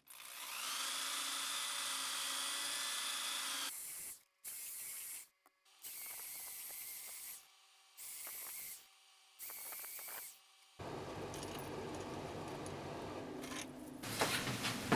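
Handheld rotary tool with a small disc whining against silver chain links. It spins up with a rising pitch, runs steadily, then is heard in a string of short bursts that cut off abruptly. The last few seconds hold a duller, steady noise.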